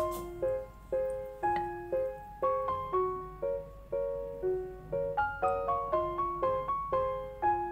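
Background music: a light piano tune played in short, evenly paced notes.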